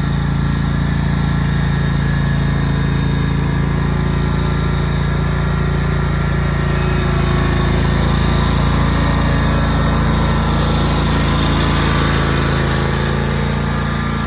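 Riding lawnmower engine running steadily, getting slightly louder in the middle.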